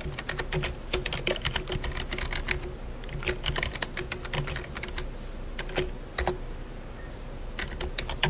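Computer keyboard being typed on: irregular key clicks at an unhurried pace, with a brief lull near the end.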